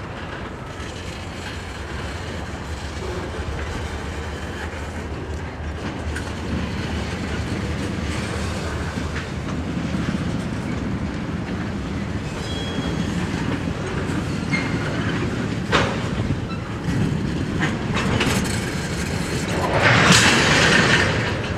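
Freight train tank cars rolling past, their steel wheels clacking over the rail joints with a steady rumble and a few sharper knocks. A louder hissing rush comes near the end.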